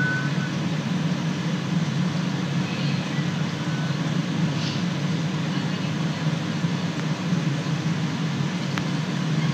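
Steady low hum with a fainter hiss above it, constant throughout, with no speech.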